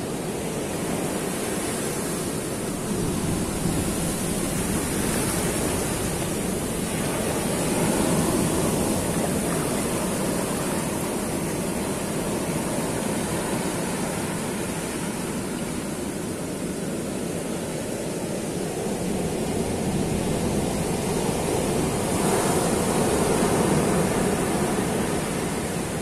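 Ocean surf breaking and washing up over a dark sand beach: a continuous rush of waves that swells louder twice, about a third of the way in and again near the end.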